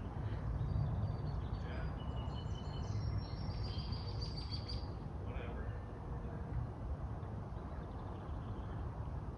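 Small birds chirping, a cluster of short high calls between about one and five seconds in, over a steady low outdoor rumble.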